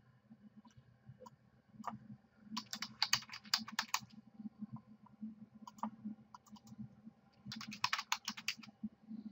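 Typing on a computer keyboard: two quick bursts of keystrokes, one about two and a half seconds in and one about seven and a half seconds in, with a few single clicks between them.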